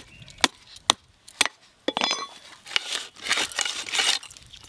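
A heavy blade chopping through a large katla fish: a run of sharp knocks about every half second, then a scraping, rustling stretch as the fish is worked against the blade.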